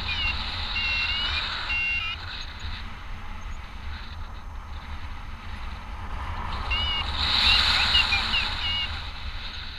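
Airflow rushing over the microphone of a paraglider in flight, with a flight variometer's short pitched beeps sounding in bursts: a few about a second in, a quick run just before two seconds, and more from about seven to nine seconds, the vario signalling climbing air.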